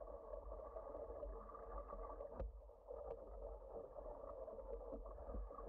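Water rushing and lapping along the hull of a rowing eight, with a low wind rumble on the camera and a few light knocks, the sharpest about two and a half seconds in.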